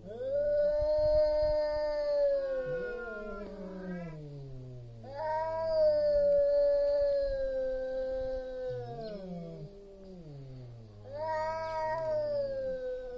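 Two male cats caterwauling at each other in a territorial standoff just before a fight: long, drawn-out yowls from two voices at once, one high and one low. The high yowls come loudest three times, a few seconds apart, each falling away at its end, while the lower one wavers up and down beneath them.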